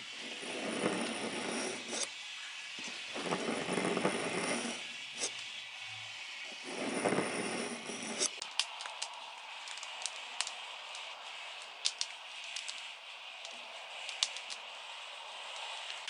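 A knife blade drawn through a pull-through knife sharpener: three scraping strokes, each about a second and a half long, followed by scattered light clicks over a faint steady hiss.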